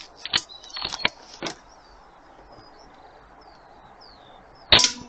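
A few short sharp clicks of the AP900 air rifle being handled and readied, then a single loud air rifle shot near the end with a brief low ring after it. Birds chirp faintly in the background.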